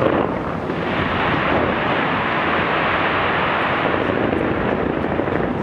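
Fireworks going off in a dense barrage, the bursts merging into one steady rumble.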